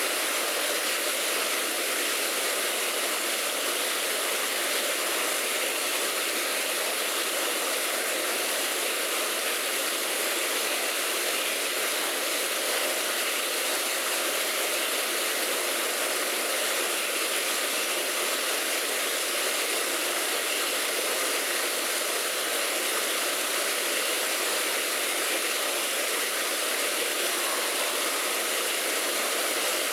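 Steady, even rush of falling water from a waterfall pouring down an artificial rock wall.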